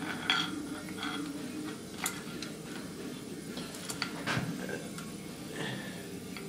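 Scattered light metallic clicks and clinks, a handful of separate taps a second or more apart, as camshafts and hand tools are handled and set into a Yamaha YFZ450 cylinder head on the workbench.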